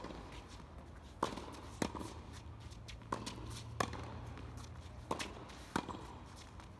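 Tennis rally on a hard court: tennis balls struck by rackets and bouncing off the court, a series of sharp pops coming in pairs, about seven in all.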